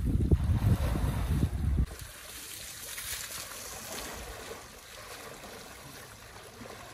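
Wind buffeting the phone microphone with a heavy, uneven rumble that stops abruptly about two seconds in. After that there is a quieter, steady wash of water as an elephant wades through shallow lake water.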